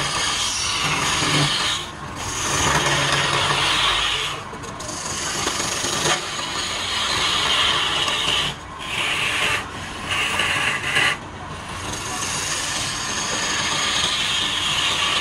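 A tool working wood on a spinning wood lathe makes a steady scraping hiss. It breaks off briefly about five times, at roughly 2, 4.5, 8.5, 9.5 and 11 seconds, as the tool comes off the work.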